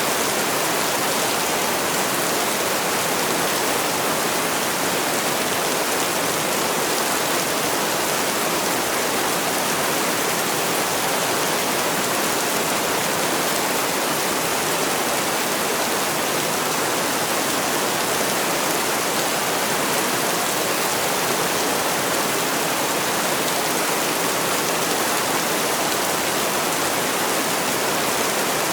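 Heavy rain falling in a steady, dense hiss, with no single drops or thunder standing out.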